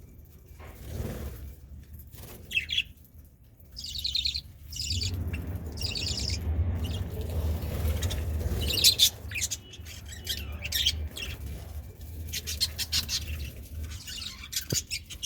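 Budgerigars chirping and warbling in quick, high bursts that come and go, with a low rumble underneath through the middle stretch.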